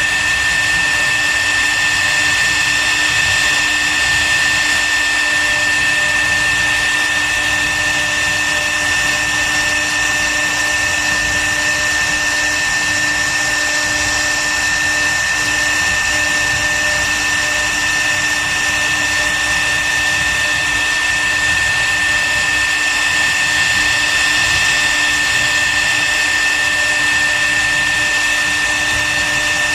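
CNC wood router's spindle motor running steadily with a constant whine.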